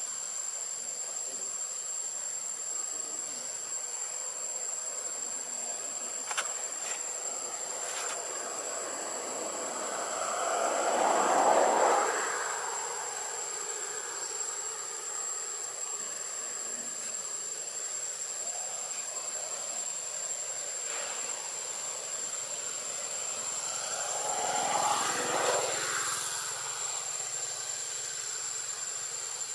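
Outdoor background: a steady hiss with a thin, high, steady tone. Twice, a distant engine noise swells up and fades away over a few seconds; the first pass is the louder.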